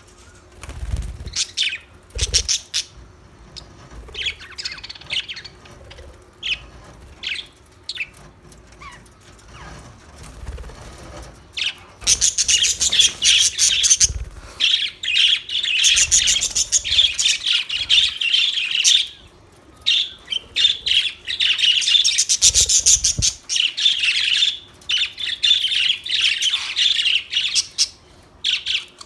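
Budgerigars chirping: scattered short calls with a few soft low thumps at first, then from about halfway in a dense, fast, continuous chattering warble broken by brief pauses.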